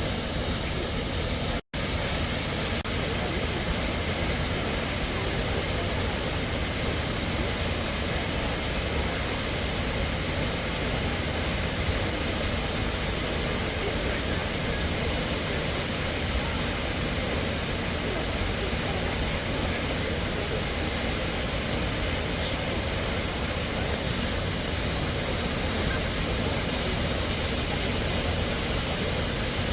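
Waterfall pouring into its plunge pool: a steady rush of water with no change in level, cut off for a split second about two seconds in.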